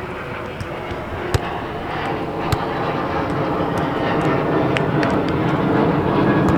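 Airplane passing overhead, a steady engine noise that grows steadily louder. Two sharp smacks of a volleyball being hit stand out about a second and a half and two and a half seconds in.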